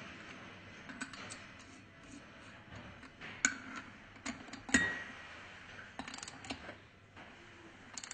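Scattered light metal clicks and taps from tools and pump parts being handled while the pump is reassembled, the sharpest a few seconds in and a quick run of small clicks around the middle.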